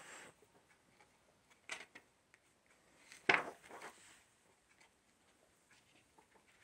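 Thick glossy pages of a large book being turned by hand: a few short paper rustles and swishes, the loudest and sharpest about three seconds in.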